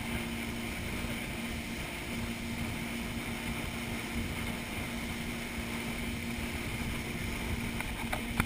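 Motorboat engine running steadily while towing, a constant hum over the rush of the wake and wind on the microphone. A single brief knock near the end.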